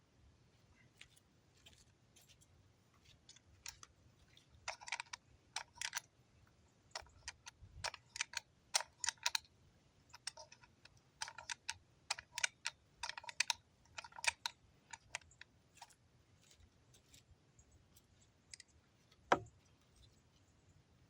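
Irregular light clicks and clacks, some in quick runs, as a truck side mirror and its loosened mount are worked and adjusted by hand, with one sharper knock near the end.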